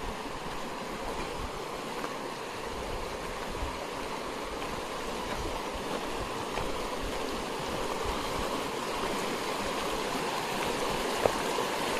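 Shallow stream flowing over stones: a steady rush of running water that grows slightly louder toward the end.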